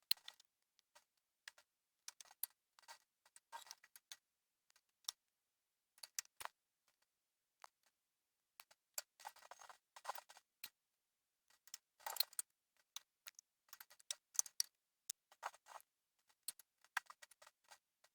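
Faint, scattered small clicks and short scraping bursts of a screwdriver tightening the screws of an Acer Nitro 5 laptop's plastic bottom cover, in irregular clusters.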